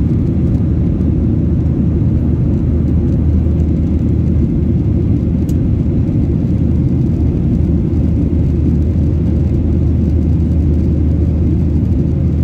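Steady low cabin noise of an Airbus A320 climbing after takeoff: jet engines and rushing airflow heard inside the cabin, unchanging throughout. There is one faint click about five and a half seconds in.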